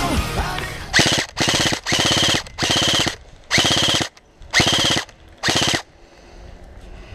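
An airsoft electric gun firing seven short full-auto bursts in quick succession, each a rapid string of shots with a whirring gearbox whine, with short pauses between bursts.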